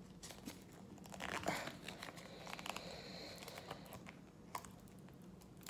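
Faint crinkling and tearing of a trading card's plastic wrapping as fingers pick and pull at it, in scattered small crackles, busiest from about a second in.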